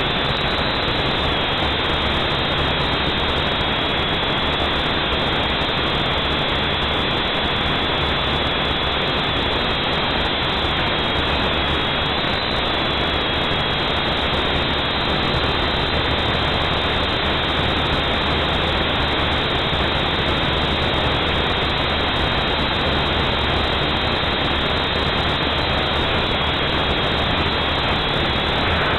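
UDI Discovery HD toy quadcopter's motors and propellers whirring steadily in flight, with a thin high whine that wavers slightly in pitch.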